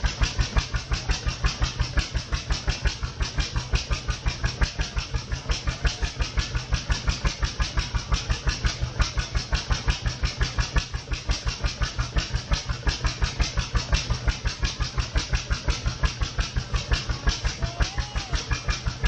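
An engine running steadily with an even thump of about five beats a second. A few short chirps sound over it.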